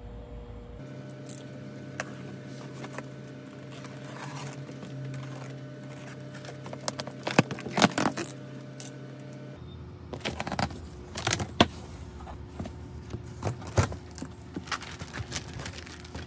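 Cardboard box flaps and styrofoam packing being handled by hand: scraping, rustling and sharp knocks and clicks that come in bursts, loudest around the middle and again a little later.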